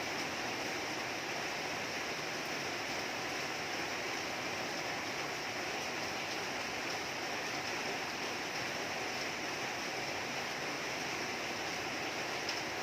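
Rain falling steadily, an even rushing hiss of water with no single drops or other sounds standing out.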